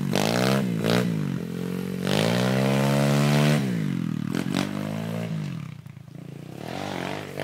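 Small dirt bike engine being ridden, its revs rising and falling several times as the rider works the throttle, highest about three and a half seconds in. It fades as the bike moves away around six seconds in, then grows louder again near the end.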